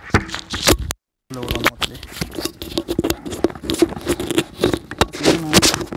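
Handling noise of a wired microphone being fitted inside a motorcycle helmet: dense scratching, rubbing and clicking as the mic and its cable scrape against the helmet lining, with the sound cutting out completely for a moment about a second in.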